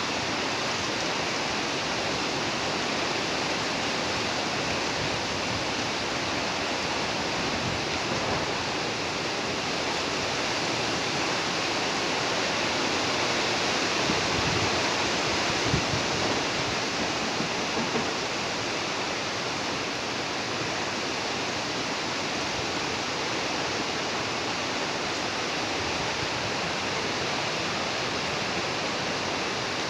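Steady rushing noise of a storm, a dense even hiss that holds without a break, with a few faint low knocks about halfway through.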